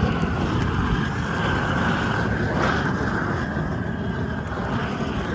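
Weed Dragon propane weed torch burning steadily, a continuous rushing flame noise that does not change as the wand is passed over weeds among rocks.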